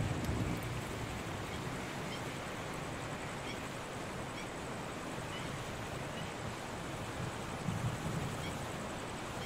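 Steady outdoor background noise, with a few faint, short high chirps scattered through it.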